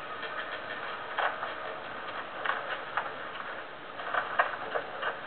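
Quiet stretch of a film soundtrack heard through a TV's speaker and re-recorded in the room: a steady hiss with a few faint, irregular clicks.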